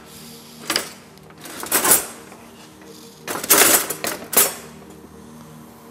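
Kitchen utensils clattering and rattling in several short bursts, about a second apart, as a drawer of utensils is rummaged through.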